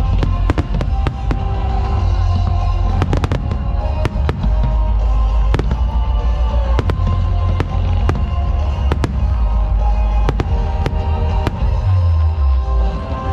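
Aerial firework shells bursting in a rapid barrage, a quick string of sharp bangs, over loud music with a heavy bass.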